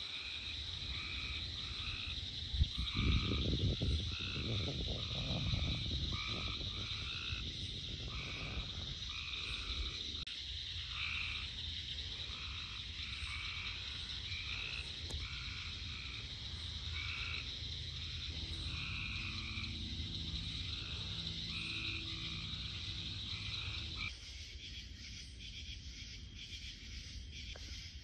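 Frogs calling at night: short calls repeated about once a second, over a steady high-pitched drone. A few seconds of low rumbling noise come near the start, and the drone cuts out about 24 seconds in.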